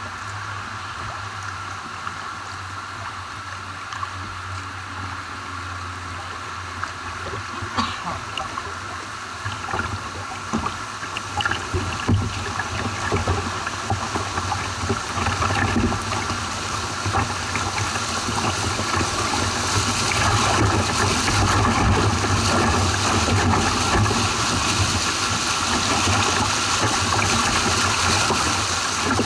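Water rushing and splashing over a small concrete weir, growing steadily louder as the kayak nears the churning white water at its foot, with the loudest, fullest rush in the second half.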